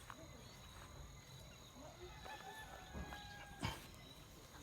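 Faint outdoor ambience of insects chirring steadily on high tones, with a few short whistled calls, likely birds, in the middle. A sharp knock about three and a half seconds in is the loudest sound.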